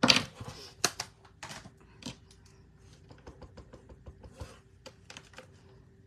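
A clear stamp on its acrylic block scrubbed across a stamp cleaning pad, with knocks at the start. A run of light plastic clicks and taps follows as the block is handled.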